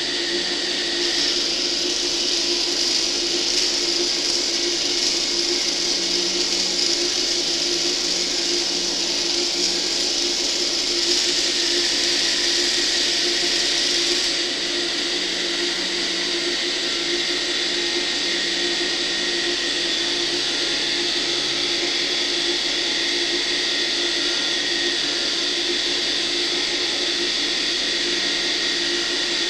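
Small electric motors and plastic gear trains of a homemade egg-moving robot whirring steadily under a constant hiss. The sound gets a little quieter about halfway through.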